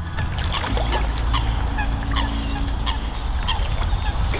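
Geese honking repeatedly, in a string of short, downward-sliding calls, over a steady low rumble.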